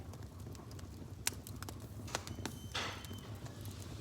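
A few sharp clicks and knocks, then a brief rustle with a faint high tone about three seconds in, over a low steady hum.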